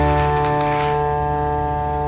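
Background music: a held chord ringing on and slowly fading, with a high rattling shimmer over its first second.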